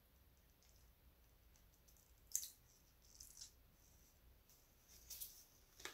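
Near silence, broken by a few faint clicks and taps from a paint bottle being handled and squeezed over a metal pouring cup. The sharpest click comes about two and a half seconds in.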